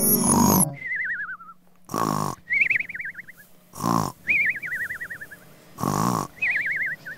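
Cartoon snoring sound effect: a short rasping snore followed by a wobbling whistle that falls in pitch, repeated four times about every two seconds. A brief chime ends just as it begins.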